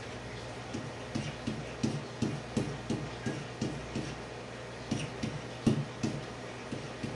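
Pen writing on a whiteboard: a string of irregular taps and knocks, a few a second, as each digit is stroked onto the board.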